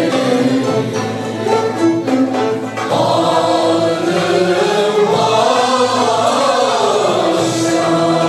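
Mixed choir singing Turkish classical (art) music with a traditional ensemble of kanun, violins, cello, ud and frame drum. The sound grows fuller about three seconds in.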